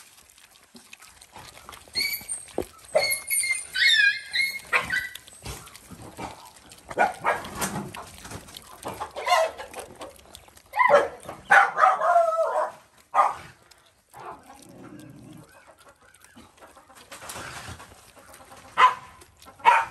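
High-pitched animal cries and yelps in several bursts, gliding in pitch, loudest about eleven to thirteen seconds in, with a few sharp knocks near the end.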